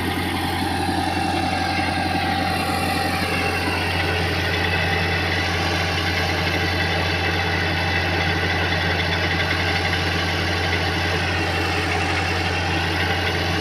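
Komatsu bulldozer's diesel engine running steadily at an even, unchanging speed, with a deep hum.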